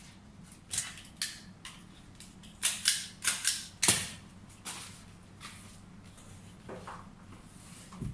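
Sharp, crisp snaps and clicks from stiff fresh leaves being folded and handled. A few come at first, then a loud run of about four in quick succession about three seconds in, and fainter ones after that.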